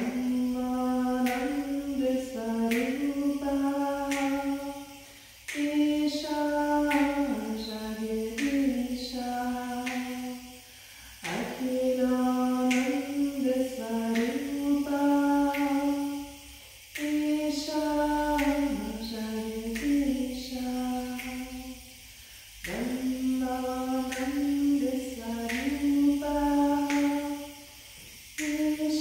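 A single voice singing a slow, chant-like melody without accompaniment. The pitch moves in small steps, in about five phrases of roughly five seconds each, with short breath pauses between them.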